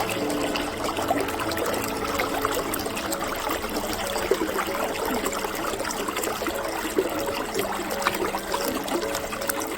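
Shallow creek running over stones: a steady babble and trickle of water.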